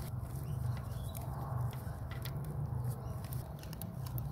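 Faint scattered clicks and scrapes of a replacement oil pressure sensor being started by hand into its threaded port in an LS1 V8's engine block, over a steady low hum.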